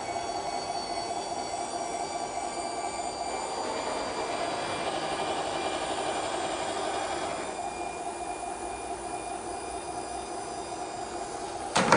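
Electric tipping mechanism of an HG P803A 1/12-scale RC military dump truck whining steadily as the dump bed rises. Near the end comes a short, loud clatter as the load slides out of the tipped bed.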